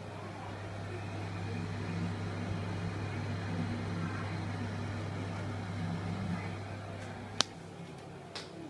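KDK bathroom exhaust fan running with a steady low motor hum, which builds over the first couple of seconds and then dies away about seven seconds in as the fan is switched off. A single sharp click follows shortly after.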